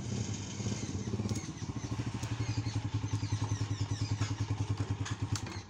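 Small commuter motorcycle's single-cylinder engine pulling up and running at low revs, an even putter of about ten beats a second, which stops abruptly near the end.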